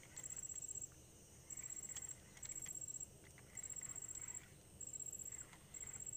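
Insect chirping: high, rapid ticking chirps, each well under a second long, repeated very regularly about once a second.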